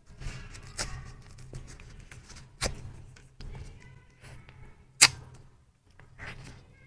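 Small plastic jelly pouch crinkling in gloved hands as it is opened and sucked from, with three sharp pops about a second, two and a half, and five seconds in.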